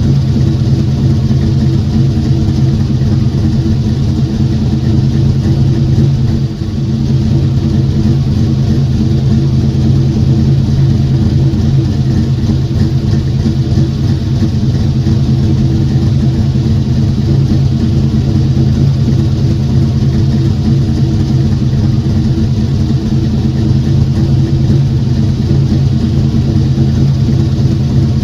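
Car engine running at a steady speed, a constant low drone with no change in pitch, briefly dipping in loudness about six seconds in.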